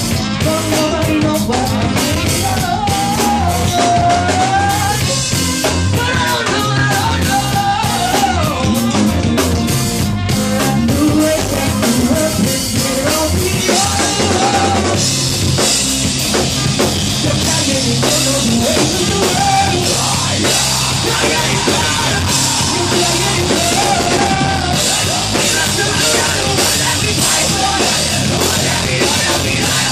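Live rock band playing loudly with drum kit, electric guitars, bass guitar and trumpet, the trumpet or a voice carrying a wavering melody over a steady drum beat.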